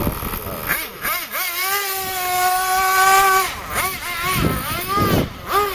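Small nitro RC car engine revving: quick blips of throttle, then held at high revs for about two seconds in the middle, then more short revs near the end.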